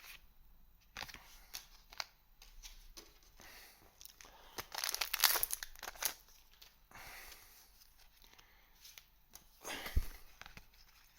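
Trading card booster pack wrapper being torn open and crinkled, with cards rustling as they are handled. The tearing is loudest in the middle, and there is a short knock near the end.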